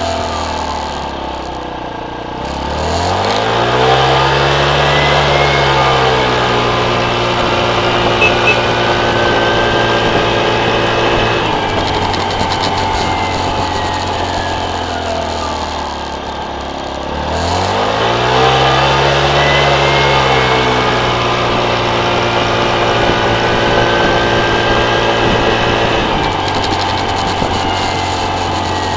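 Motorcycle engine running under way. It pulls up in pitch and levels off twice, about three seconds in and again just past halfway, easing back down between the two.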